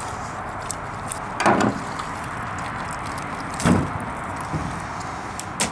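Knife work on a snapping turtle carcass: three short thuds and scrapes as the meat is cut and the carcass handled, about one and a half seconds in, nearly four seconds in and near the end, over a steady background hiss.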